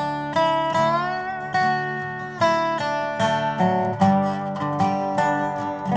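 Dobro resonator guitar played with a slide over acoustic guitar in an instrumental break, with plucked notes, one of them sliding up in pitch near the start.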